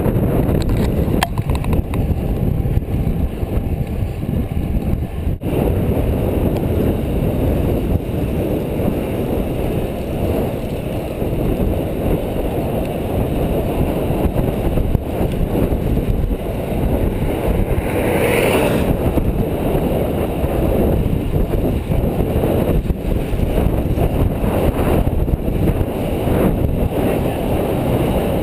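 Wind rushing over the microphone and tyre noise from a road bike riding at about 19–20 mph: a loud, steady rush heaviest in the low end. A short rising squeak about eighteen seconds in.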